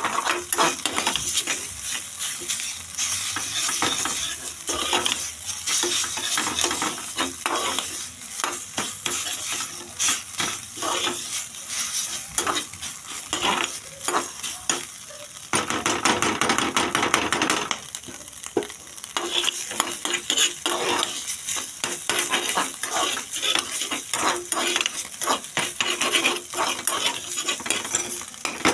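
Scrambled egg sizzling as it fries in a pan, with a metal spatula stirring and scraping against the pan in quick, repeated strokes. The sizzle swells louder for a couple of seconds a little past the middle.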